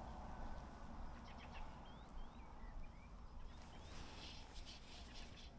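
Faint bird calls, short rising chirps several times over, above a steady low rumble. Near the end, a brief rustle and a few light clicks as the spinning rod is picked up.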